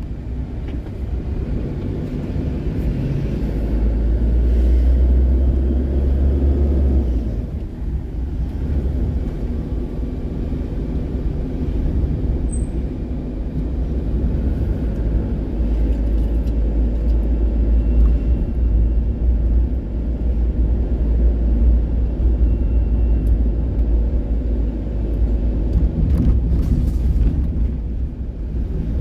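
A vehicle's engine and tyre noise heard from inside the cab while driving, a steady low rumble that grows louder for a few seconds around four seconds in.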